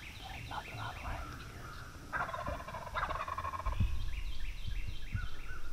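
An Osceola wild turkey gobbler gobbling about two seconds in, a loud rattling call lasting about a second and a half. Around it, other short, high, falling bird notes repeat several times a second.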